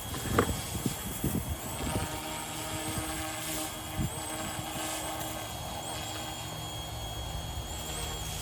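Yu Xiang UH-1 Huey remote-control helicopter's electric motor and rotor running steadily, with wind buffeting the microphone during the first couple of seconds.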